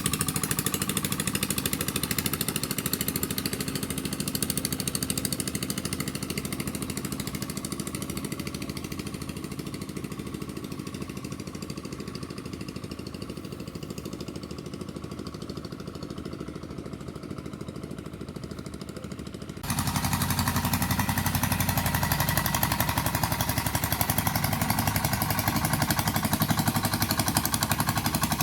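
Boat engine running steadily with a fast, even beat. It grows gradually quieter, then abruptly becomes louder about two-thirds of the way through and holds steady.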